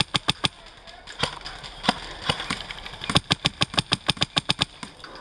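Airsoft rifle firing: a short burst of about four shots, a few single shots, then a longer rapid burst of about fourteen shots at roughly nine a second.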